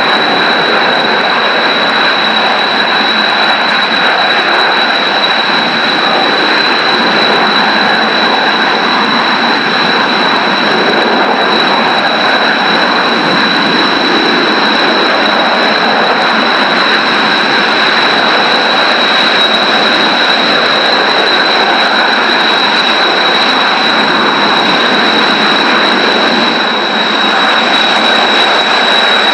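Jet engines of Kawasaki T-4 trainers running steadily on the ground, a constant rushing noise with a steady high-pitched whine that holds the same pitch throughout.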